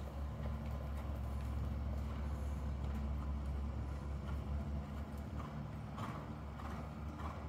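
Hoofbeats of a ridden Thoroughbred mare on the soft sand footing of an indoor arena: muffled, even thuds, clearest in the second half at about one every 0.6 s, over a steady low rumble.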